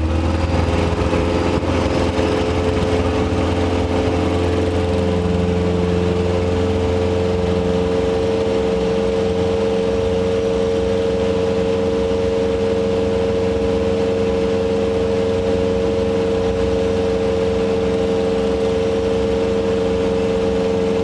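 Robin HR200 light aircraft's piston engine and propeller at takeoff power through the takeoff run and climb-out, a loud, steady drone heard inside the cockpit.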